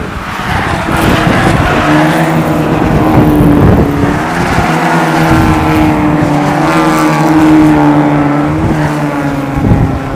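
A pack of Ford Fiesta race cars driving past at racing speed, their engines loud under hard throttle and nearly steady in pitch, easing off near the end as they pull away.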